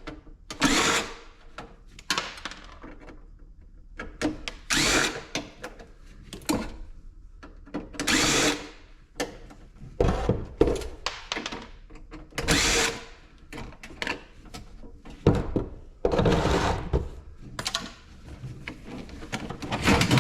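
Power drill-driver running in short bursts every second or two, backing screws out of a mini ice maker's sheet-metal casing, with clicks and knocks between the bursts.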